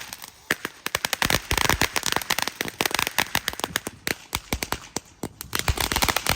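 Small consumer ground firework crackling: a rapid, irregular string of sharp pops and cracks, thinning briefly before picking up again near the end.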